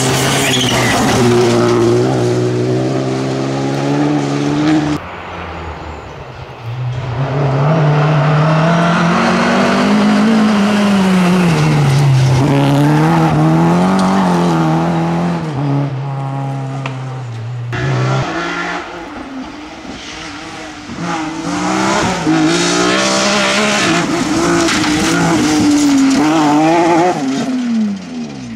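Rally car engines driven hard in a string of short clips: each engine revs up and drops with gear changes and lifts, its pitch rising and falling. The sound cuts abruptly from one car to the next several times.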